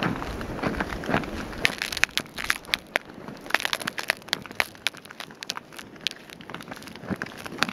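Hiking boots crunching on snow over river ice in a steady walking rhythm, with many sharp, irregular crackles and clicks as the snow packs underfoot.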